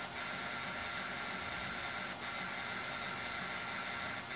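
Epson SureColor F2000 DTG printer's suction pump running steadily in tube-washing mode, a hiss with a faint steady whine. It is pulling cleaning solution from the cap station through the ink tubes.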